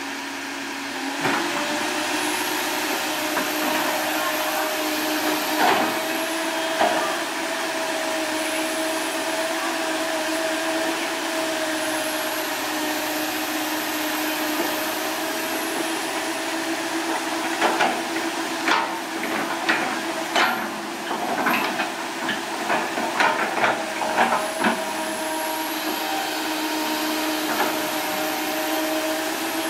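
Komatsu PC160LC hydraulic excavator running steadily, its diesel engine and hydraulics making an even hum while the bucket pushes soil back into a pipe trench. Past the middle comes a cluster of sharp knocks and clunks from the bucket and soil.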